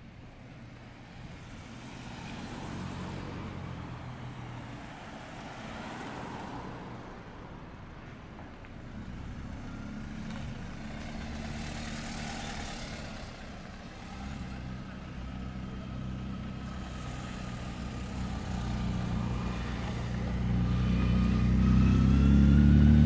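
Motor traffic passing on a road: vehicle engines come and go, and one vehicle draws close and grows much louder near the end, its engine note rising slightly.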